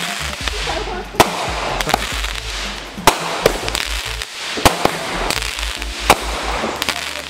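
Consumer fireworks going off: sharp bangs from aerial shots bursting overhead, roughly one every second or so at uneven intervals, over a continuous hiss of fizzing sparks.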